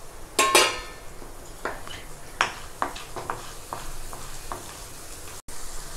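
Oil sizzling as chana dal, urad dal and peanuts fry in a kadai during tempering, with a wooden spatula stirring and scraping them. Scattered ticks run through it, with two sharper clicks just after the start.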